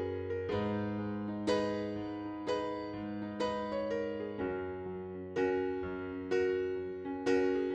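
Background music on electric piano: chords struck about once a second and left to ring, over held bass notes.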